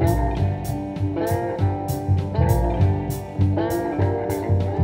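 Background music: guitar over a steady drum beat and pulsing bass, with notes that slide in pitch.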